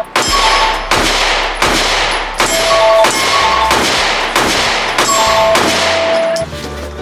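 Background music: bell-like notes over a low bass line and a steady beat, with a strike about every three-quarters of a second, ending shortly before the close.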